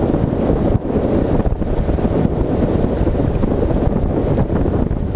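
Heavy wind rumble on the microphone aboard a Kazanka aluminium motorboat running under its Yamaha outboard, with the motor and the water along the hull blended into a steady, dense roar.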